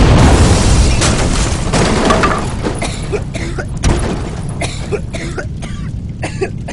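A 6-inch peony aerial firework shell going off: one very loud boom at the start, then a rumbling fade with several sharper bangs and scattered pops over the next few seconds.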